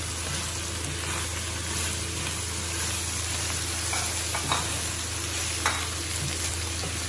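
Chopped vegetables sizzling in hot oil in a metal wok, stirred with a wooden spatula that scrapes and knocks against the pan a few times.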